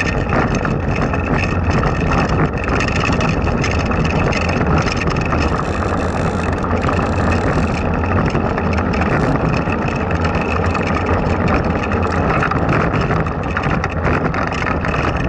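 Blokart land yacht rolling over asphalt: a steady rumble from its small wheels on the rough surface, carried through the frame to the mounted camera.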